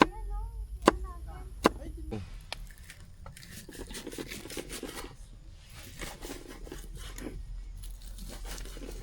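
Three sharp clicks in the first two seconds over faint voices, then several seconds of irregular rustling and crinkling, like something being handled or torn.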